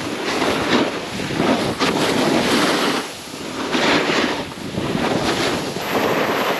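Snowboards sliding and scraping over slushy spring snow, the noise rising and falling in swells as the riders turn, with wind rushing over the microphone.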